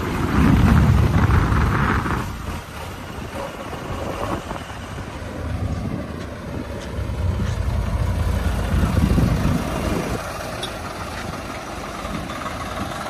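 JCB 3DX backhoe loader's diesel engine running and working under load. It rises in level twice, briefly near the start and again for a few seconds past the middle, as the machine digs or lifts soil.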